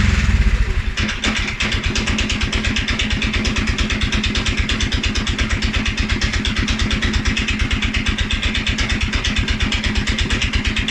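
2011 Polaris Sportsman 550 XP's single-cylinder four-stroke engine coming down off a rev and settling to a low idle with evenly spaced exhaust pulses, about eight a second. This is the low, rough idle after revving that the owner is trying to diagnose, even though the dealer found the EFI sensors, valve clearances, timing and fuel pressure in spec.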